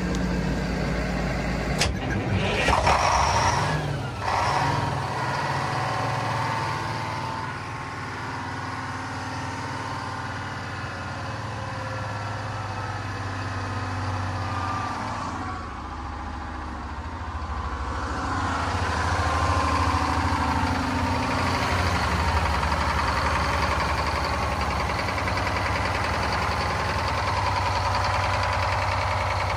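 Diesel engine of an old Mudcat horizontal sand dredge running just after starting. Its pitch shifts a few times as the throttle is raised, and it runs louder from about two-thirds of the way through.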